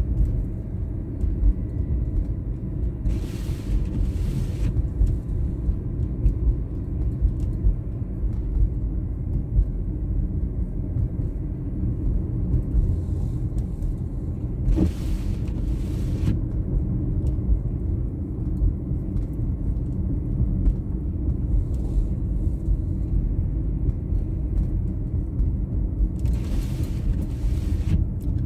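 Car driving on a snowy road: a steady low rumble of engine and tyres. A brief hiss swells up three times, about 3 seconds in, in the middle and near the end.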